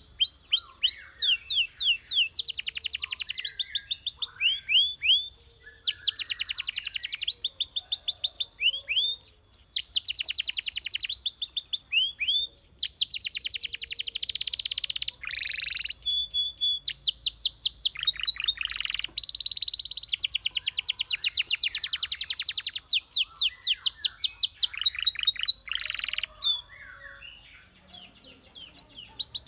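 Belgian canary singing: long rapid trills of repeated notes, one phrase after another with short breaks between them, and a lull near the end.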